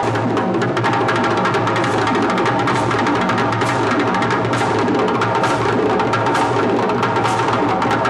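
Djembe ensemble: several hand drums played together in a fast, dense, unbroken rhythm.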